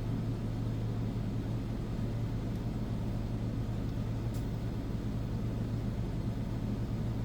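Furrion Chill Cube 18k rooftop RV air conditioner running steadily with its fan on high, over the steady hum of a generator.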